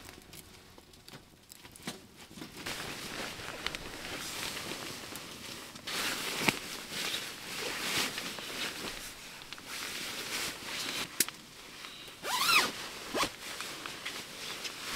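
Nylon sleeping bag and tent fabric rustling while a sleeping bag zipper is worked, in irregular scrapes and swishes. Near the end a dog gives a short high whine that rises and then falls as it yawns.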